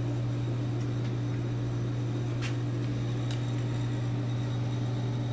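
A steady low machine hum, with a couple of faint clicks near the middle.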